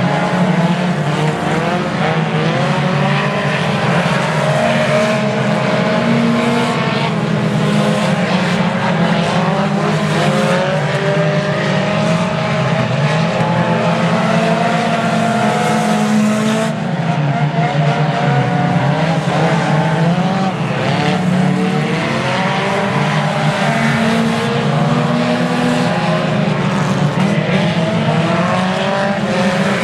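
A field of four-cylinder race cars running at racing speed on a dirt oval. Many engines overlap, each one rising and falling in pitch as it accelerates down the straights and lifts for the turns.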